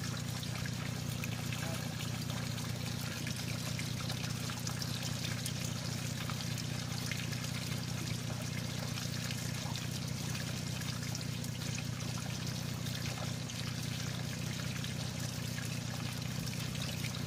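Water draining out of a flooded vehicle cab through its floor drain holes: several thin streams trickling and splashing into a muddy puddle below, over a steady low hum.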